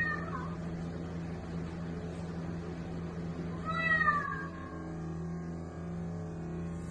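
A domestic cat meowing twice: a short meow right at the start and a longer, rising-then-falling meow about four seconds in, over a steady low hum.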